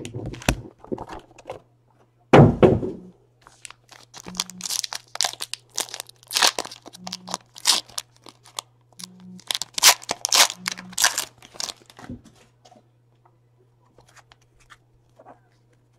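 Crinkling and tearing of a trading-card pack's wrapper as it is ripped open by hand, with a single thump about two and a half seconds in.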